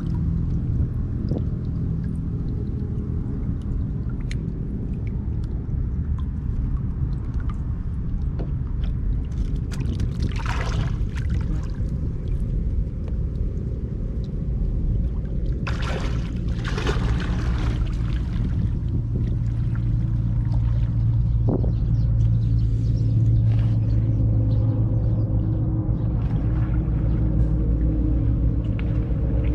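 A small engine running steadily with a low hum, growing a little louder past the middle, with two short rushing or splashing noises about ten seconds in and again around sixteen seconds.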